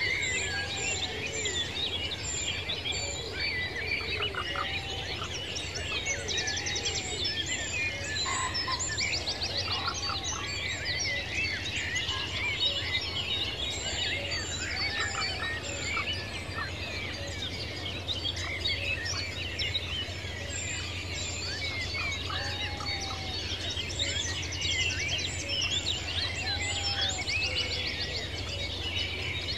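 Countryside nature ambience: a dense chorus of many birds chirping and trilling without pause. A short, lower arching call repeats every few seconds, and a steady low hum lies underneath.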